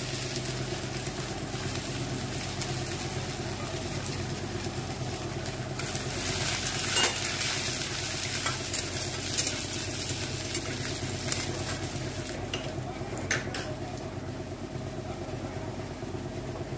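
Chopped garlic and dried red chillies sizzling steadily in hot mustard oil in a kadai, the tempering for fried greens. A steel spoon stirs them, with a few clinks against the pan.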